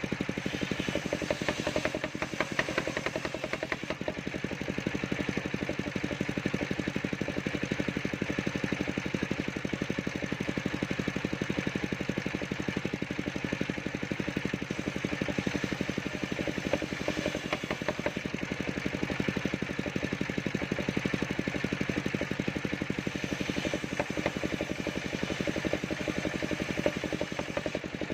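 Portable circular sawmill for timber running steadily, its engine chugging at an even, fast pulse with no change in speed.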